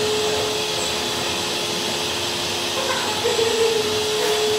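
OMNI 1325 CNC router spindle running with a steady whine over a rushing noise as the bit engraves a wooden board.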